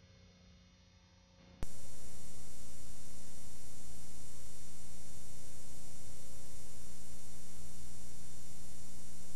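Loud, steady electrical hum and buzz with many overtones that cuts in abruptly about a second and a half in, after a near-silent start, and holds unchanged. It is the noise of a VHS tape's audio track once the recorded programme has run out.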